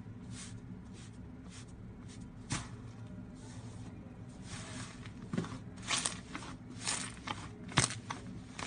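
Slime being pressed and squeezed by hand, giving scattered soft clicks and pops that come thicker and louder in the second half, over a steady low hum.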